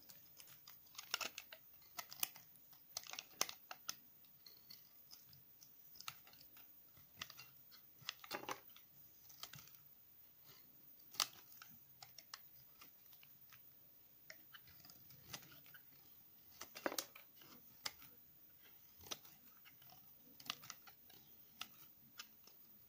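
Utility knife blade cutting and shaving a block of bar-soap remnants pressed together, with irregular crisp crackles and sharp clicks and short pauses between the cuts.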